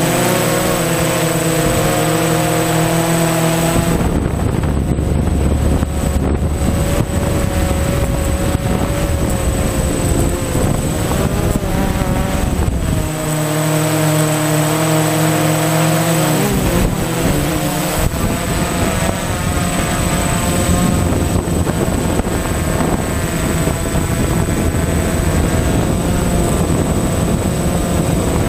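DJI Phantom FC40 quadcopter's motors and propellers whining in flight, heard close on board, with several steady tones drifting in pitch as the speed changes. For long stretches a low rumble of wind on the microphone covers the motor tones.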